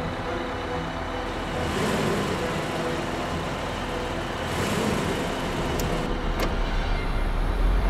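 Suspense sound design under a horror scene: a steady low rumbling drone with held tones, and airy whooshes that swell and fade about every three seconds. Two faint clicks come a little past the midpoint.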